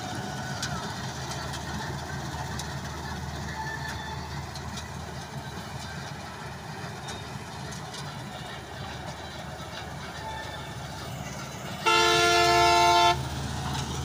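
Combine harvester running steadily while it cuts wheat: a low, even engine and threshing drone. Near the end a horn sounds once, loud and for about a second.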